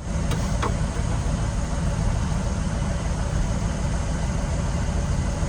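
Steady low rumble of an idling engine, with a couple of faint light clicks shortly after the start.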